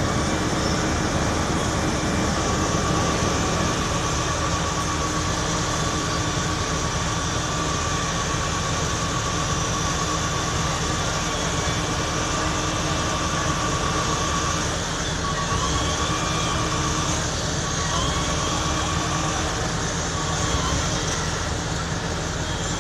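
Fire trucks' diesel engines and water pumps running steadily while pumping water to the aerial ladder's stream: a loud, unbroken drone with a constant whine.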